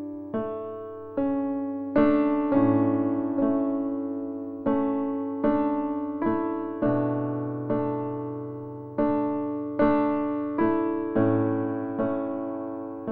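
Background music: a slow, gentle solo electric piano piece, with notes and chords struck about once a second and each one dying away.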